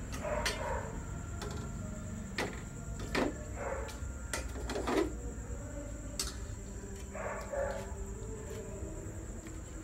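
Scattered knocks and short clatters of kitchen handling as boiled pork mesentery is lifted out of an aluminium pot and handled on a cutting board with a cleaver, over a low steady hum.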